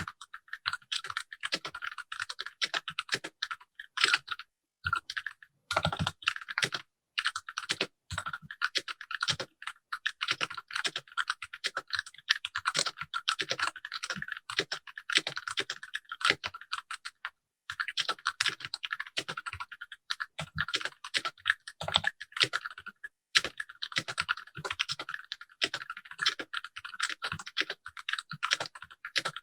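Typing on a Keychron K6 65% mechanical keyboard with ABS keycaps, set on a bare desk without a deskmat: a fast, continuous clatter of keystrokes with a few brief pauses.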